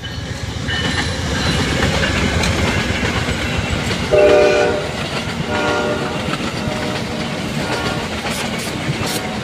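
Amtrak passenger train passing close, its cars' wheels rumbling and clacking on the rails. A horn blast sounds about four seconds in, the loudest moment, with a shorter one about a second later.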